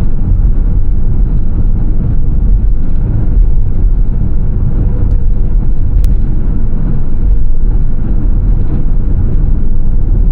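Loud, steady low rumble of a road vehicle running.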